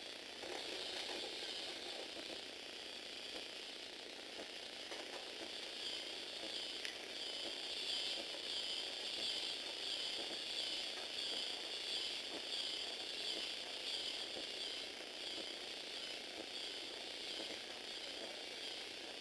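Lego Technic walking robot running: a small electric motor whines through its gear train while the plastic legs and linkages clatter with each step. The whine rises and falls in a steady rhythm of a little over once a second, most evenly through the middle.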